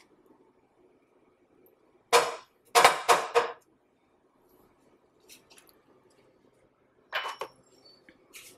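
Wooden spatula scraping and pushing a pat of butter across a nonstick pan: three quick strokes about two seconds in, then two more near the end, each a short, loud scrape.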